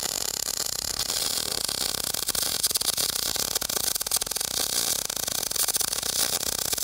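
Electric arc welding: a continuous bead laid around a slowly turning steel axle-tube end. The arc gives a steady, crackling hiss. This is a practice weld on a tube cutoff, used to dial in the welder settings and the rotation speed.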